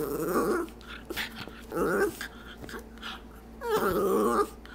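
A Schipperke 'talking': three short, wavering vocal sounds about two seconds apart, the pitch bending up and down within each.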